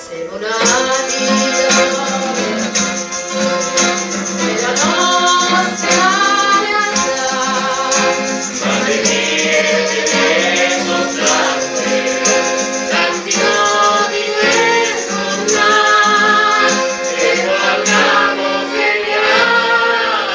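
Singers and a choir performing a Roman-dialect popular song over instrumental backing, the voices entering just after the start.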